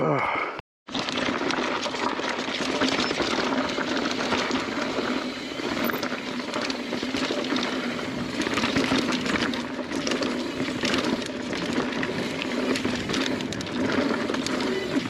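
Mountain bike rolling fast down a rocky dirt trail: tyres on dirt and rock, with the rattle and chatter of the bike over rough ground and wind on the microphone. It starts about a second in, after a brief dropout, and runs as a steady rush with many small clicks and knocks.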